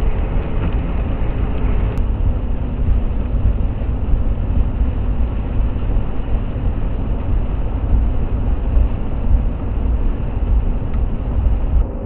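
Steady low rumble of tyres and engine heard inside a pickup truck's cab cruising at highway speed. The upper hiss thins abruptly a couple of seconds in.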